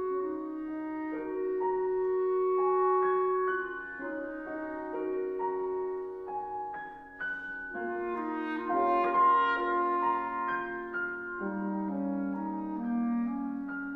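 Clarinet and grand piano playing a berceuse together: long held clarinet notes over piano notes and chords.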